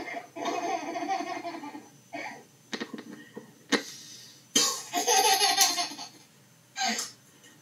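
Bursts of laughter, a baby's giggling among them, played through a TV's speaker, with the longest and loudest burst about halfway through and a sharp click just before it.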